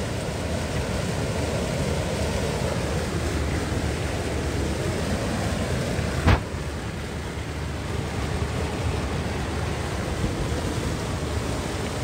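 Steady rushing of the river's flowing water, with one sharp click about six seconds in.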